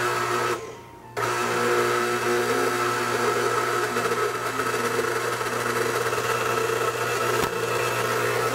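KitchenAid Heavy Duty stand mixer starting up about a second in, then running steadily as its beater works gingerbread dough in the steel bowl.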